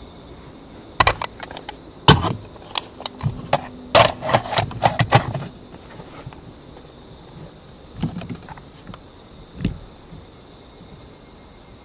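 A run of sharp clicks and knocks from handling the rifle and setting its scope, including the reticle illumination. They are densest from about one to five and a half seconds in, with two more knocks later. A steady high insect buzz runs underneath.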